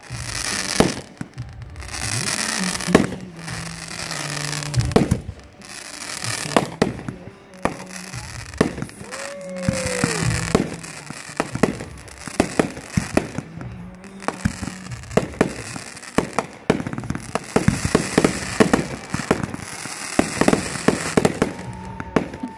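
Aerial fireworks display: a rapid series of sharp bangs from shells bursting, with crackling between them. There is a whistling tone about ten seconds in and another near the end.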